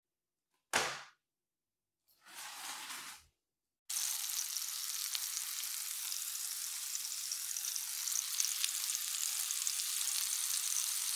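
Shiitake mushrooms sizzling in a frying pan, a steady sizzle with small crackles that starts about four seconds in. Before it come a short knock just under a second in and a brief rush of noise about two seconds in.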